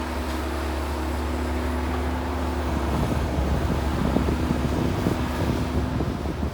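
Excavator's diesel engine running with a steady low hum. From about three seconds in, irregular knocking and rattling grows louder over it.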